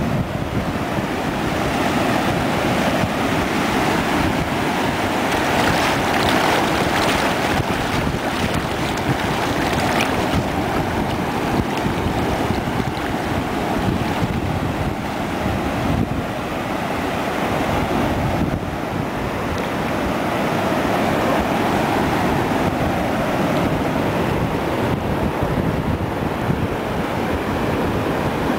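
Sea surf washing up over wet sand, a steady rushing wash, with wind buffeting the microphone.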